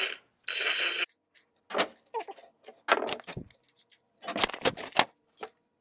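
A cordless drill-driver whirs briefly about half a second in, driving a screw into a plastic circular-saw guide. Then come a series of short clicks, clinks and knocks as the drill is set down and the guide and screws are handled on the bench.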